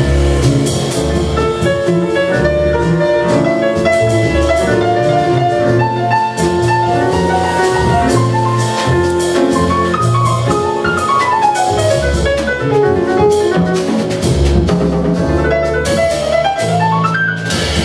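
Live jazz played by acoustic piano, double bass and drum kit, with the piano soloing. The piano plays fast runs, a long falling one about ten seconds in and a rising one near the end, over the bass and the drums' cymbals.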